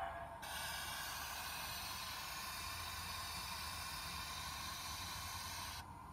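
A steady hiss that cuts in about half a second in and stops abruptly near the end, over a faint low hum.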